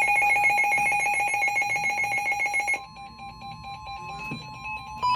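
Emergency Alert System alert tones for a severe thunderstorm warning: a loud, rapidly pulsing electronic alarm tone that cuts off about three seconds in, followed by a fainter steady beep that gets louder near the end.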